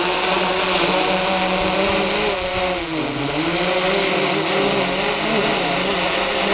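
DJI Mavic 2 Pro quadcopter's propellers whining steadily as it climbs and holds in the wind, the pitch dipping and wavering about three seconds in.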